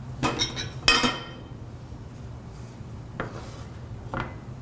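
Kitchenware clinking: two sharp, ringing clinks of utensils against dishes in the first second, then two fainter knocks later. A steady low hum runs underneath.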